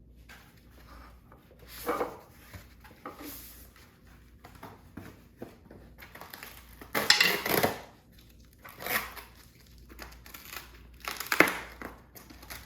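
Foam padding being pulled and unwrapped off a bicycle frame: irregular rustling and crinkling, with louder bursts about seven and eleven seconds in.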